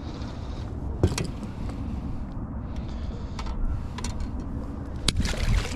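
Low, steady wind rumble on the microphone, with a few sharp knocks and clicks of handling in the boat: a loud one about a second in and another near the end, followed by a brief rattle.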